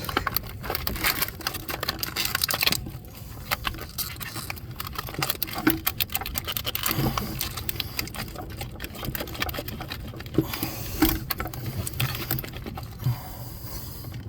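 Irregular rustling, scraping and small clicks and knocks of hands working a rubber vacuum hose onto its fitting and pushing a plastic wire loom aside.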